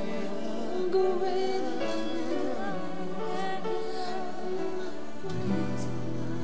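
Music: a song with singing over instrumental accompaniment.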